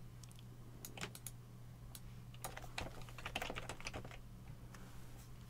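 Typing on a computer keyboard: a couple of keystrokes about a second in, then a quick run of them midway, over a faint steady low hum.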